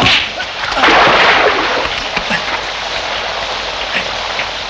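Heavy rain pouring steadily, with a louder surge of rushing noise about a second in that fades over the following second.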